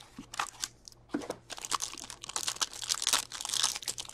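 Hockey card pack's foil wrapper crinkling and tearing as it is pulled open by hand: a rapid run of irregular crackles that grows denser after the first second.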